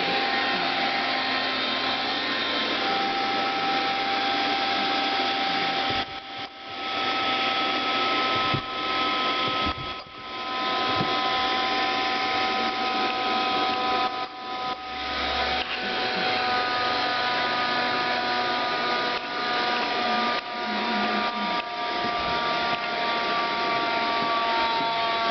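Vacuum cleaner running steadily, a rushing airflow noise with a high motor whine; the noise dips briefly several times from about six seconds in.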